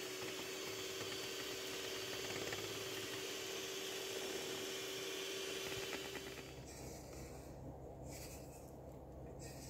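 NASA electric hand mixer running its beaters through cake batter in a stainless steel bowl: a steady motor whine that cuts off about six and a half seconds in. After that there is quieter scraping of a spatula in the bowl.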